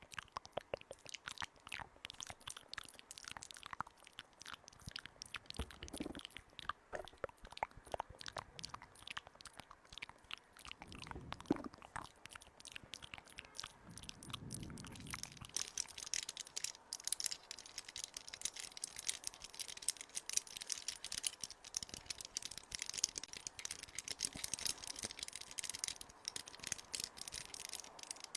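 Close-miked ASMR crunching and crackling: many small clicks and scrapes, with a few soft thumps early on, turning into a dense, steady scratchy rustle about halfway through.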